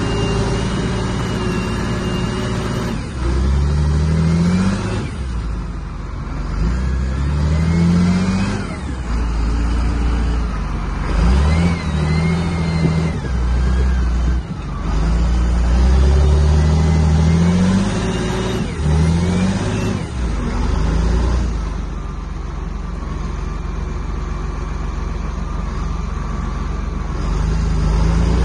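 John Deere 8220 tractor's six-cylinder diesel engine under heavy load, revving up again and again in surges a few seconds apart, then running steadier and a little quieter for a few seconds near the end. The load comes from the tractor straining to pull out a tree stump.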